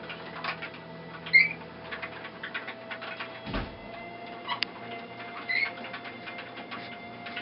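Wooden warping mill being turned by hand as warp yarn winds onto it: light ticking and clicking throughout, short squeaks about a second and a half in and again near the end, and a dull thump around the middle.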